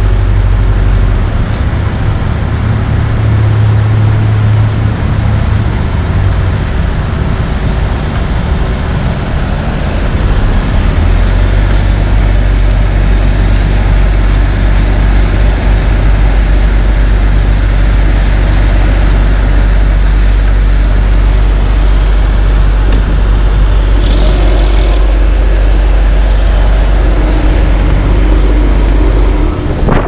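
Heavy diesel engines of an International dump truck and a LeeBoy 8515B asphalt paver running steadily in a loud, low rumble while the truck feeds asphalt into the paver. The deepest part of the rumble drops away just before the end.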